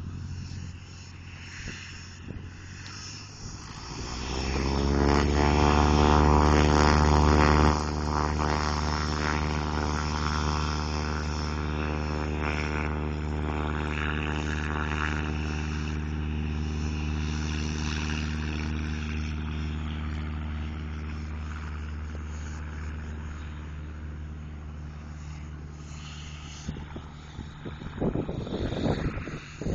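Cessna single-engine propeller plane at full takeoff power: a steady engine and propeller drone swells up over a few seconds, then fades slowly as the plane climbs away. A few knocks and rustles come near the end.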